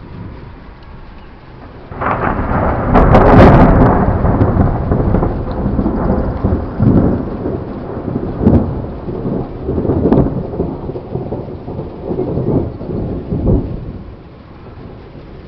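A thunderclap about two seconds in, from a storm directly overhead, then thunder rumbling in repeated swells for about ten seconds before fading.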